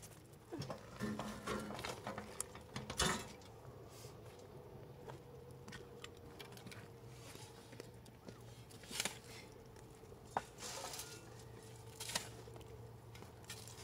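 Scattered light knocks, taps and clinks of work by hand, the loudest a knock about three seconds in, over a faint steady hum.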